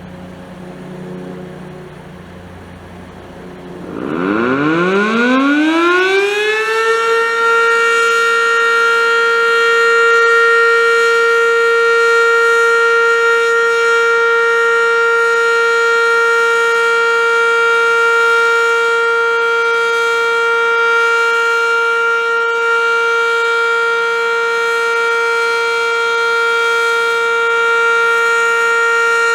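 ASC OM-117 (ACA Banshee) outdoor warning siren sounding for its scheduled monthly test: about four seconds in it winds up, rising in pitch over a few seconds, then holds a loud, steady tone.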